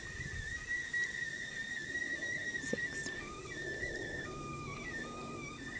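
A steady high whistling tone at one pitch, which breaks in the second half into short notes stepping between higher and lower pitches.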